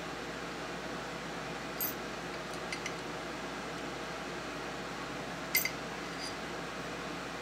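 A few small metallic clicks from parts of a Remington Model 12 pump-action .22 rifle's action being moved by hand, the loudest about five and a half seconds in, over a steady background hiss.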